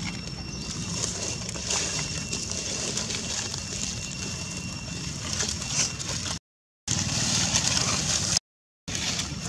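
Dry leaf litter crunching and rustling under a foraging macaque, over a steady outdoor background rumble with a faint high insect whine. The sound cuts out completely twice for a moment near the end.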